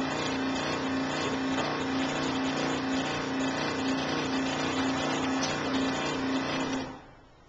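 Benchtop scroll saw running, its reciprocating blade cutting through a block of foam with a steady buzzing hum. The saw is switched off near the end and the sound dies away quickly.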